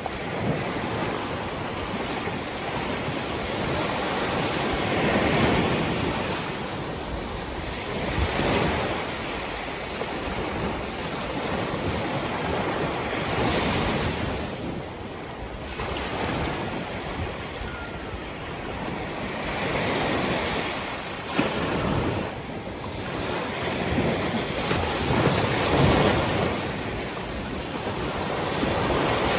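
Ocean waves breaking on a beach: a steady wash of surf that swells into louder crashes every few seconds and then ebbs.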